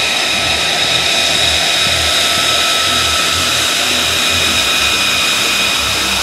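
F-35A Lightning II fighter's jet engine running at taxi power: a loud, steady rush with a high whine held on several fixed pitches over a low, uneven rumble.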